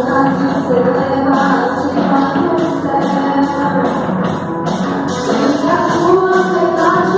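A band and singers performing a Portuguese worship song, with a sung melody over the band and a bright high percussion stroke keeping an even beat about twice a second.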